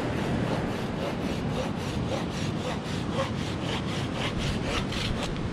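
A blade sawing back and forth into hard, dry driftwood while shaping a bow drill set: quick regular strokes, about three or four a second, growing more distinct in the second half.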